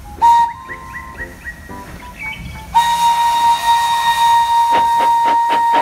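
Steam locomotive whistle on a Thomas the Tank Engine replica engine, blowing one long steady blast starting about three seconds in.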